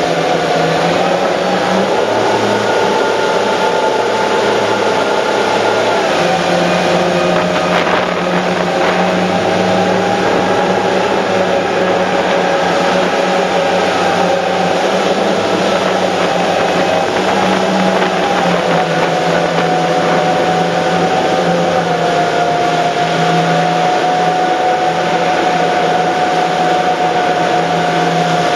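Engines of a large 900 hp rigid inflatable boat running at speed, a steady whine that dips slightly in pitch about six seconds in and again about twenty seconds later, over the rush of wind and churning water.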